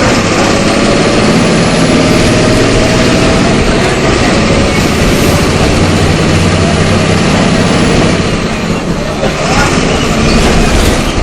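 MWM 6.12 TCAE six-cylinder turbodiesel of a Volkswagen Volksbus 17.210 EOD bus running steadily as the bus drives. Its sound drops briefly about eight to nine seconds in, then picks up again.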